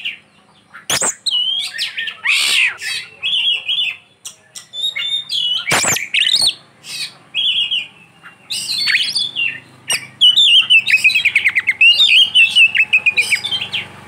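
Oriental magpie-robin (kacer) singing a varied song of whistled phrases, glides and harsh notes, rich in imitated calls of other birds. About ten seconds in it breaks into a long, rapid trill.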